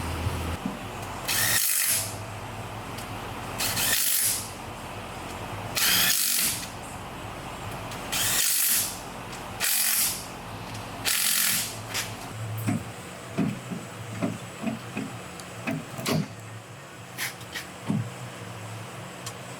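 Power tool run in six short bursts of about half a second each, driving bolts home during reassembly of a rear differential. A series of lighter clicks and taps follows.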